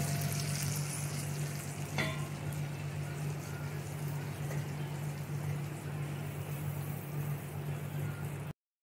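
Tiger prawns sizzling in hot mustard oil in a nonstick frying pan, with a wooden spatula scraping and lifting them out, over a steady low hum. A sharp click comes about two seconds in, and the sound cuts off just before the end.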